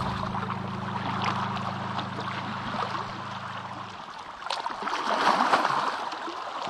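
Sea water washing and lapping against the shore, swelling in the second half. Until about four seconds in, background music holds a low note and then stops.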